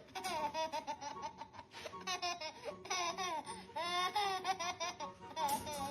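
A baby laughing in repeated short bursts.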